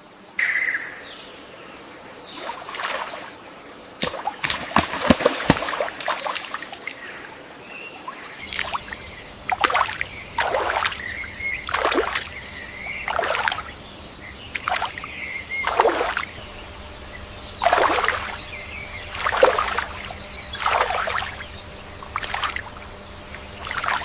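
Water splashing and sloshing in repeated short bursts, about one every second or so, with faint bird chirps. For the first several seconds a steady high-pitched hiss runs under scattered splashes and clicks, then stops abruptly.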